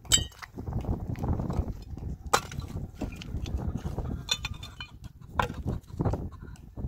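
Rocks and a hollow concrete block clacking and scraping against each other as they are lifted and set down by hand, with a few sharp knocks spaced a second or two apart over a low rumble.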